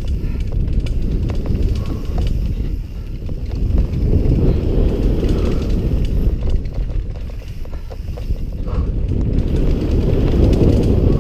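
Wind noise on a helmet-mounted camera's microphone as a downhill mountain bike rides fast down a dirt trail, with the rattle and knocks of the bike and tyres over bumps.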